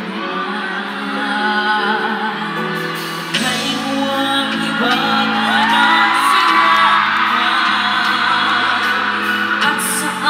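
Young boy singers performing live over amplified backing music, heard from the audience in a large hall, with held notes and a slide between notes about midway, and some whoops from the crowd.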